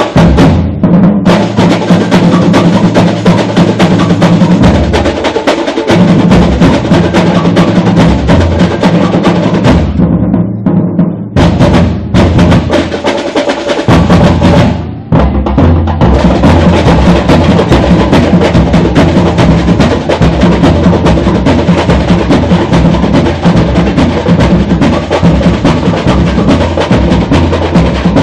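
Samba batería (drum section) playing a samba-enredo groove: deep bass drums under dense, rapid snare and rattle strokes. Twice, around ten and twelve seconds in, the high drums drop out briefly in a break while the low drums keep going, then the full section comes back in.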